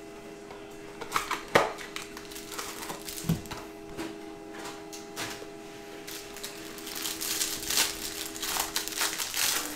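Handling of a cardboard trading-card box and its cellophane-wrapped card stack: sharp cardboard clicks about a second and a half in and a dull thump near three seconds as the stack is slid out and set down, then the cellophane wrapper crinkling as it is torn open near the end.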